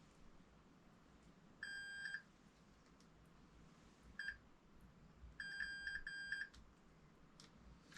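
Electronic beeping. There is a half-second beep, a short blip about two seconds later, then a quick run of beeps lasting just over a second. Each is a steady pitched tone with overtones.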